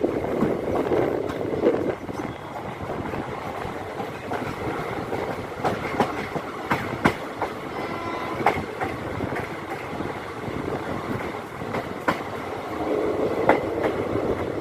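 Sangam Express passenger coaches rolling over the track, their wheels clacking irregularly over rail joints and points above a steady rumble.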